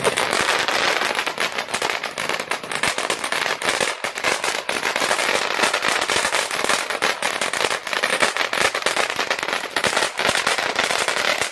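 Titan ground fountain firework burning: a steady loud hiss of spraying sparks, packed with rapid crackling pops.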